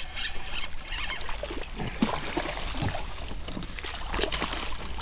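Irregular light knocks and water sounds around a fishing kayak, over a low steady rumble.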